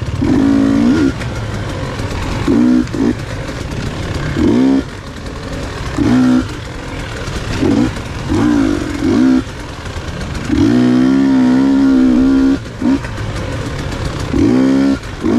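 Off-road racing engine revving hard in short bursts every second or two, the throttle snapping shut between them, with one longer pull of about two seconds past the middle.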